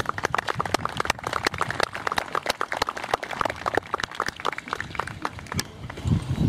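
A small crowd applauding, the separate hand claps distinct, dying away near the end.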